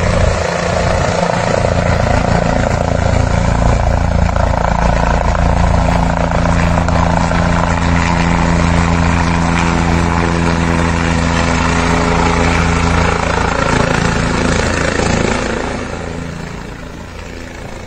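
Helicopter rotor and engine noise, loud and steady, as the helicopter comes in low to land, with a steady humming tone through the middle. The noise fades off in the last few seconds.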